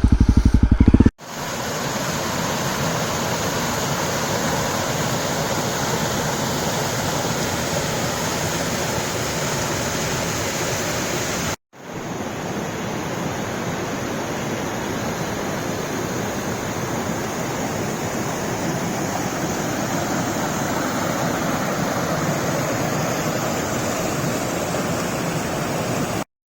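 About a second of the Honda CRF250L's single-cylinder engine idling, then a sudden cut to a waterfall's steady rush of falling water. The water sound drops out for an instant about twelve seconds in, then runs on.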